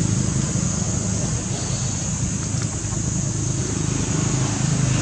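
Steady outdoor background noise: a low rumble with a hiss above it, unbroken throughout.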